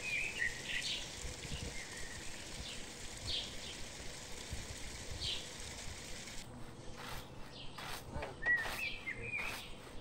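Birds chirping, with short whistled calls, over a steady outdoor hiss. From about six and a half seconds in, a run of short scuffs and knocks is added.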